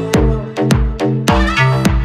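Electronic dance music with a steady beat, a low kick drum about twice a second under sustained synth chords.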